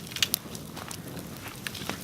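Wood bonfire crackling: a steady low rush of flame with sharp pops, the two loudest close together just after the start and a few smaller ones near the end.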